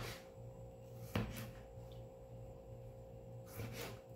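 Kitchen knife slicing tomatoes on a plastic cutting board, with one sharp knock of the blade striking the board about a second in and softer cuts near the end. A faint steady hum runs underneath.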